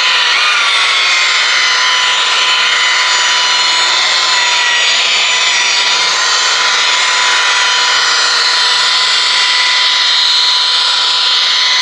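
Electric rotary polisher running steadily at about 1400 rpm, a high motor whine, while its pad cuts compound into wet-sanded car paint.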